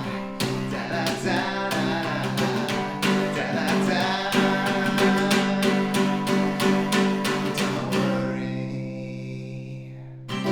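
Guitar strummed in a steady rhythm, about three or four strums a second, closing the song. About eight seconds in the strumming stops and a chord is left ringing and fading, with one last strum right at the end.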